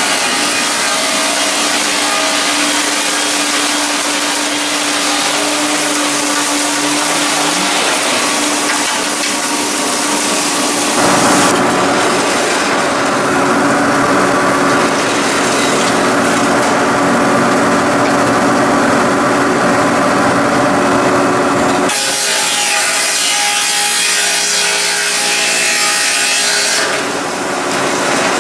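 Laimet 120 sawmill sawing through a log on its carriage: a loud, continuous cutting noise that changes character abruptly twice, about a third and about two-thirds of the way through, with a steady machine hum under the first part.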